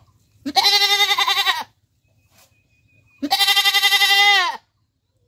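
Domestic goat bleating twice: two long, quavering calls, the second beginning about three seconds in.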